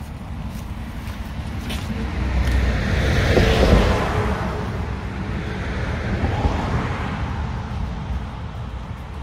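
A car passing by: tyre and engine noise swells to a peak about three and a half seconds in, then fades away.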